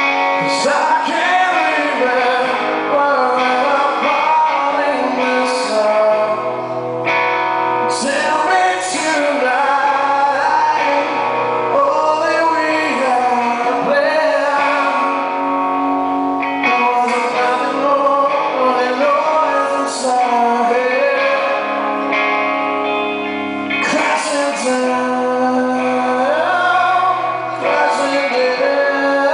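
A live rock song: a man singing lead over electric guitar, with a steady bass line underneath, played without a break.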